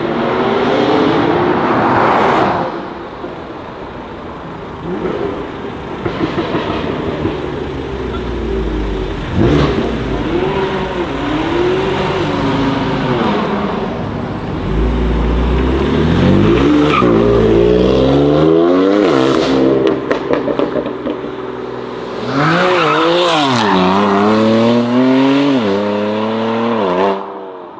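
High-performance cars, among them a BMW M4, revving hard and accelerating away with some tyre squeal. The engine pitch climbs and drops again and again as they run up through the gears, most strongly in the last few seconds.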